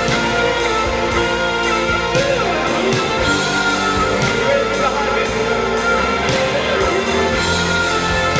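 Stratocaster-style electric guitar playing a melodic lead with sustained notes, over drums keeping a steady beat.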